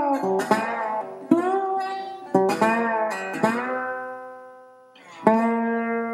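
Outro music of plucked strings: single notes and chords, some bending in pitch. A chord rings and fades out, then a new chord is struck near the end.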